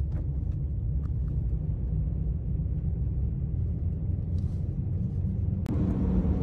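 Steady low rumble of a car driving, heard from inside the cabin, with a few faint clicks. Near the end the rumble changes, becoming fuller, with a sharp click where it shifts.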